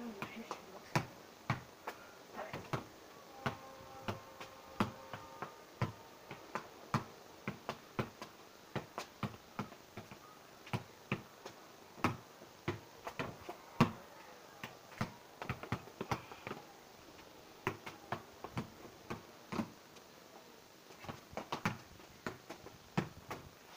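A football being kicked in repeated keep-ups: a long run of sharp taps about two a second, some harder than others.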